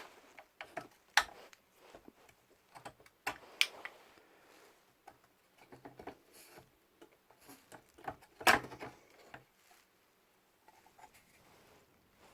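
Scattered small clicks, taps and knocks of hands handling and cleaning parts of an old valve radio, with quiet gaps between; the loudest knock comes about eight and a half seconds in.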